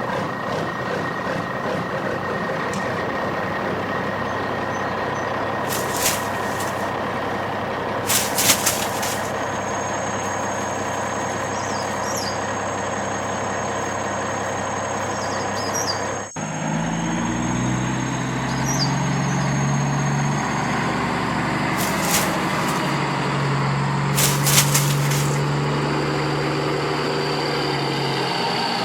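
Heavy truck engine sound effects running steadily, with a few short sharp hisses. About sixteen seconds in the sound cuts to a different engine whose pitch steps up and down.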